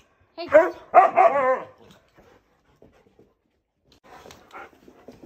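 Siberian husky 'talking': two loud yowling calls whose pitch rises and falls, in about the first second and a half, then faint rustling. It is the husky's vocal protest at being left alone, greeting the owners' return.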